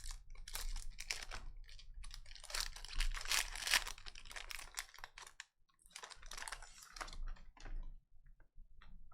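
Football trading cards being handled and flipped through: quick clicks and slides of card stock, with a denser rustle about three seconds in.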